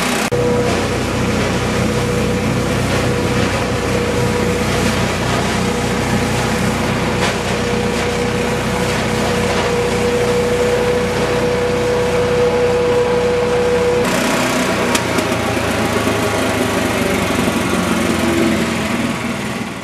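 Honda 13 hp single-cylinder petrol engine of an insulation-blowing (carding) machine running steadily under load, with a steady high whine over it that drops away about two-thirds of the way through. The sound fades out at the very end.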